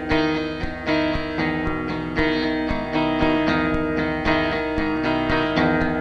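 Background music: a steady run of plucked notes, about two a second, over sustained chords.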